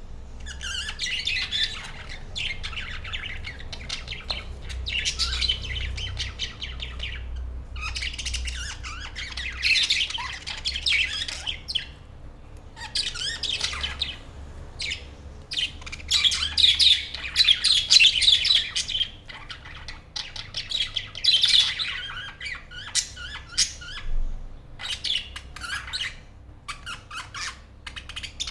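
A flock of budgerigars chattering and chirping together in a cage, in rapid overlapping warbles and squawks that come in bursts of a few seconds with short lulls between.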